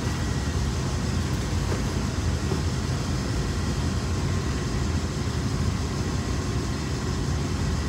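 Air-handling unit's fan running: a steady low rumble with a faint constant hum over it.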